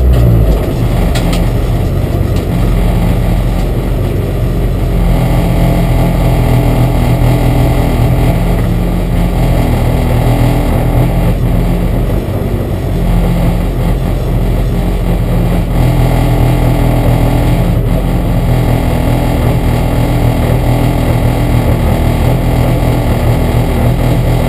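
Renault Clio R3 rally car's four-cylinder engine idling steadily, heard loud inside the stripped cabin while the car waits at the stage start.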